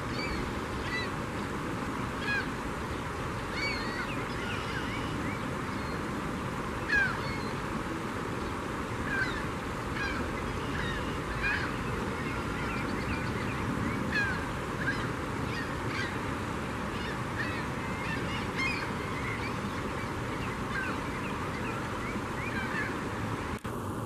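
A flock of gulls calling over and over in short, high cries, overlapping one another, during a feeding frenzy, over a steady background rush.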